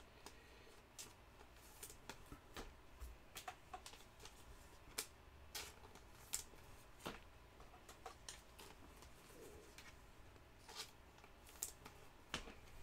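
Faint, irregular clicks and slides of trading cards being flipped through by hand, one card after another.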